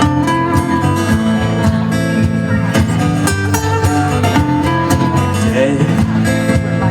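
Live rock band playing an instrumental passage, guitar-led over a steady bass line, with sharp strokes that fit drums throughout.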